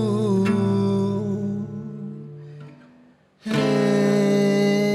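Acoustic guitar: a held closing chord fades almost to silence. Then a new chord is struck suddenly about three and a half seconds in and rings on.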